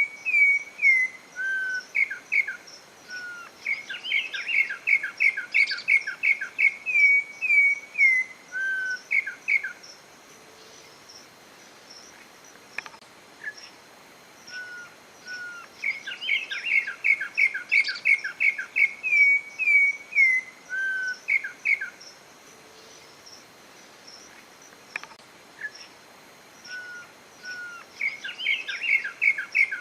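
Campo troupial (corrupião) singing: bouts of several seconds of quick, repeated whistled notes, pausing for about six seconds between bouts.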